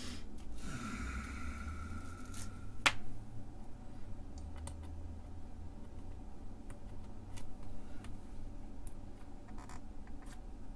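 Hands handling integrated circuit chips on a workbench. A squeaky scraping starts about a second in and ends in a sharp click near three seconds, followed by scattered light clicks as chips are picked up and pressed into their sockets on the circuit board.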